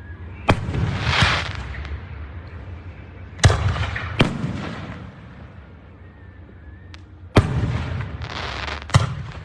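Aerial fireworks shells bursting: six sharp booms in three pairs about three and a half seconds apart, each pair followed by a trailing hiss.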